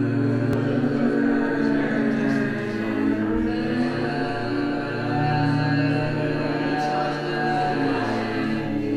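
Slow synthesized drone music: layered low held tones that shift every second or two, the sound of the installation's digital synthesis of slowed-down text.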